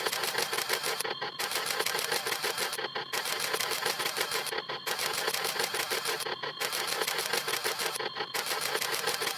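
Camera shutter snap sound effect repeated in a fast run of clicks, several a second, with a short break about every two seconds.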